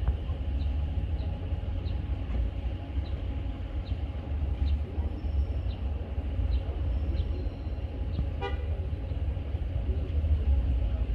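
Traffic noise at a jammed intersection: a steady low rumble of vehicles with faint regular ticks about twice a second, and a short car horn toot about eight and a half seconds in.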